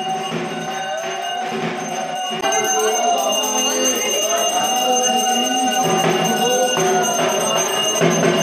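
Music: a melody of long sliding notes, sung or played, over a steady high tone. It gets louder about two and a half seconds in.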